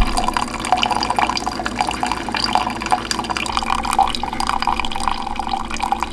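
Tap water running and splashing into a sink, a steady dense spatter.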